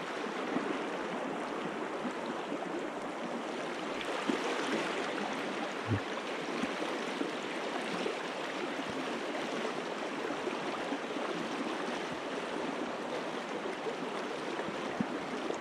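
Shallow river riffle, water rushing steadily over stones, with a few faint knocks, one about six seconds in.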